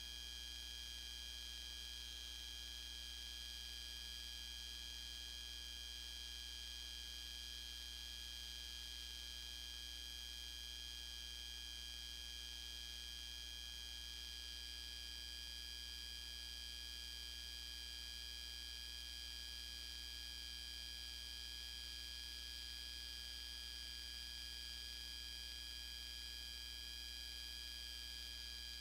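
Steady electrical hum and hiss with a few constant high-pitched whining tones, unchanging and with no events: the bare noise floor of a transferred silent home movie, with no parade sound on it.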